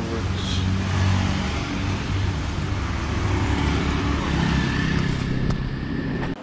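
Motor scooter engines running close by, a steady low hum as scooters pass on the street. It cuts off suddenly near the end.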